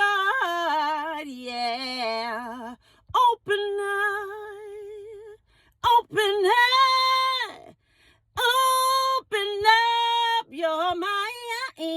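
A woman singing unaccompanied, holding long notes with vibrato in several phrases broken by short pauses.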